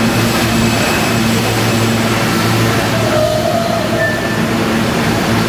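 Steady low hum of an R160 subway train standing at the station platform after pulling in, with its onboard equipment running.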